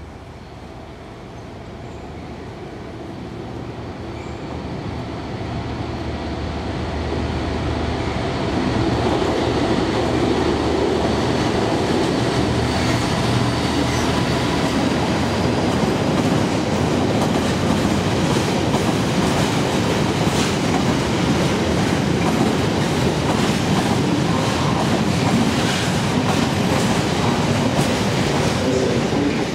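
Freightliner Class 66 diesel locomotive 66415 approaching and running through with a train of empty binliner container wagons. The sound grows louder over the first eight seconds or so, then the wagons roll past steadily with wheels clattering over the rail joints.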